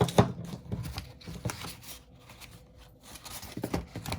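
Paper and packaging being handled: an instruction booklet rustling, with short clicks and taps. The loudest click comes just after the start, with another cluster near the end.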